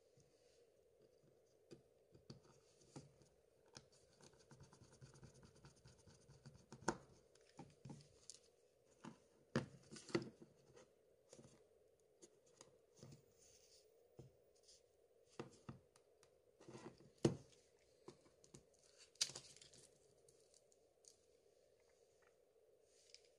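Faint, irregular clicks, taps and scrapes of fingers and small tools on a Samsung Galaxy S3's plastic midframe as it is handled and pressed into place, a few sharper clicks standing out, over a steady faint hum.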